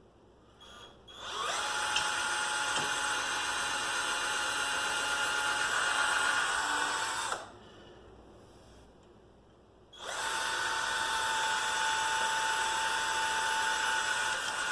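Hyper Tough 18-volt cordless drill running in two long pulls of the trigger, about six seconds and then about five, with a steady motor whine, driving screws into a chair to hold the joints together.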